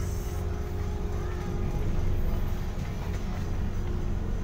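Ferry's engines running with a steady low rumble and a faint hum, heard from the open deck as the ship manoeuvres alongside the pier.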